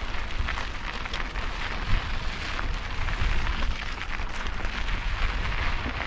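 Mountain bike rolling fast down a dry dirt and gravel singletrack: a steady crackle and rattle of knobby tyres over grit and small stones, with low rumble throughout.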